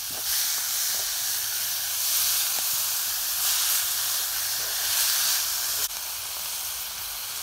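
Chopped sweet peppers, onion and tomato sizzling in butter in a cast-iron pot while being stirred with a spatula. The sizzle gets louder about a third of a second in and drops back about six seconds in.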